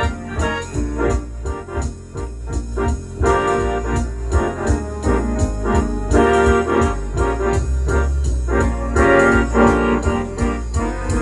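Technics two-manual electronic home organ being played: chords and melody over deep bass notes, with a steady beat.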